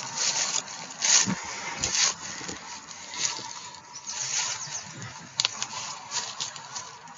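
Leaves and twigs rustling and crackling in irregular bursts as someone pushes through dense, thorny undergrowth.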